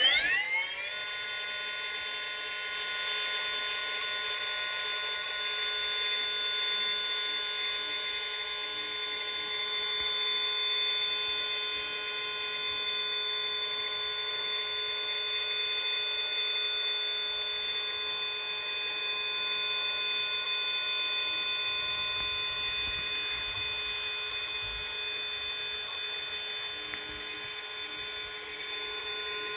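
Holmes Hobbies Revolver brushless motor in an RC rock crawler, run on a 6S battery, giving a high electric whine of several steady tones as it crawls slowly. The whine rises sharply in pitch as the motor spins up at the start, then holds steady.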